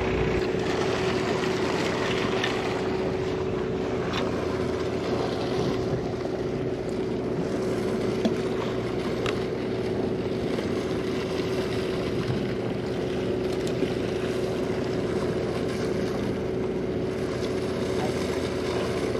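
Sportfishing boat under way: its engines drone at a constant pitch over a steady rushing noise.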